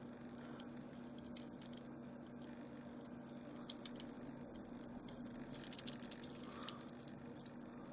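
Quiet room tone with a steady low electrical hum and a few faint, scattered small clicks.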